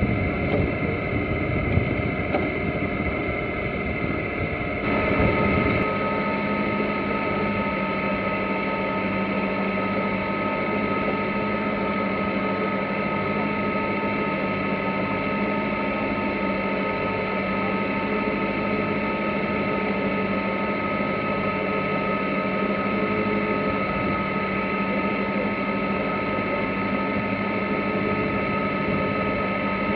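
Sailboat's inboard diesel engine running with a steady drone while the boat motors with its sails down. Wind and water noise fill the first few seconds, and the drone takes over about five seconds in.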